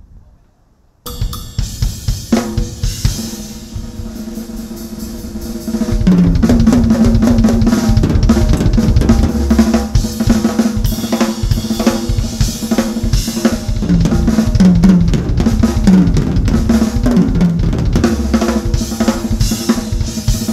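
Drum kit played live, with snare, bass drum, toms and cymbals, starting about a second in. Pitched backing music sits under it, and the playing gets much louder and busier at about six seconds.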